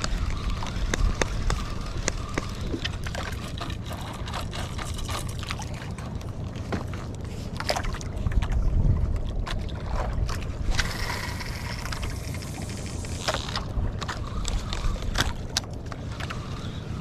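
Wind and water sloshing around a small jukung outrigger boat at sea, with a steady low rumble and scattered knocks and clicks. A hissing rush comes about eleven seconds in and lasts two to three seconds.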